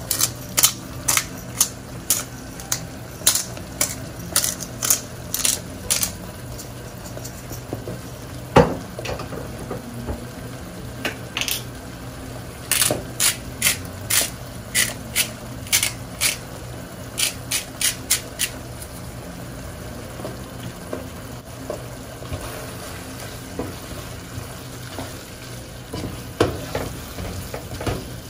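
Hand-twisted spice grinder grinding salt and pepper over a pan of boiling cream sauce. The grinder gives quick runs of sharp crunching clicks, first for about six seconds and again from about eleven to eighteen seconds, with a single knock in between. The sauce simmers throughout, and a spatula scrapes the pan near the end.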